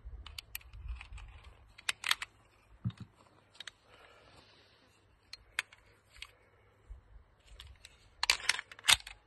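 Scattered sharp clicks and taps of handling noise, with a quick cluster of louder clicks near the end.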